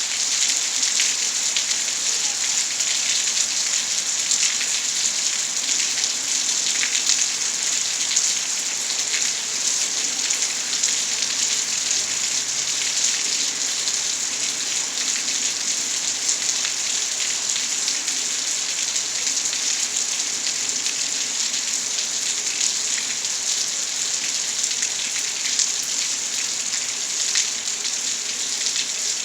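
Steady rainfall, an even hiss with many small drop ticks and no let-up.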